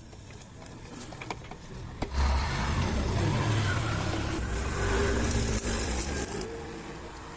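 A motor vehicle engine starts up loudly about two seconds in, runs for about four seconds and then fades; a few light metallic clicks of tool work come before it.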